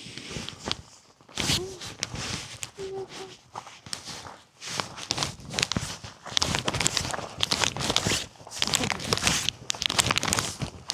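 A hiker's footsteps walking on a mountain trail: irregular scuffing steps with no steady rhythm.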